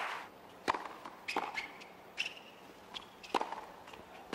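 Court sounds of a tennis match: applause dies away at the start, then come single sharp knocks of a tennis ball on the hard court and a few short sneaker squeaks, about one every half second to second.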